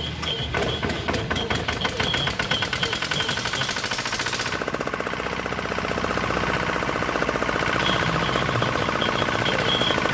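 D10 single-cylinder diesel engine running, a fast steady train of firing knocks. About four and a half seconds in, the sound changes: the hiss drops away and the running grows fuller in the middle range.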